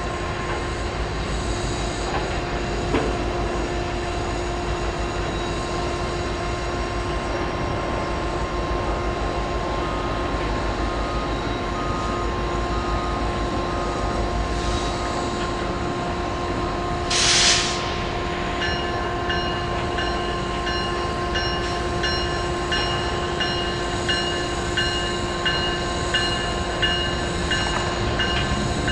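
An approaching diesel-hauled train: a steady drone, a short hiss about two-thirds of the way through, then a bell starting to ring in a steady, even beat.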